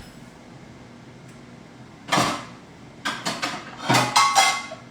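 Kitchen cupboard opened and pots and pans moved around inside it: a knock about two seconds in, then a quick run of clanks, some ringing briefly like metal cookware.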